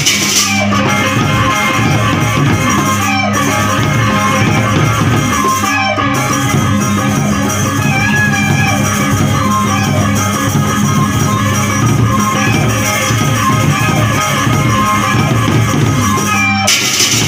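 Live traditional Indonesian ensemble music: drums and percussion under a bamboo suling flute melody, played loud and continuous. The sound cuts out for an instant twice, about three and six seconds in.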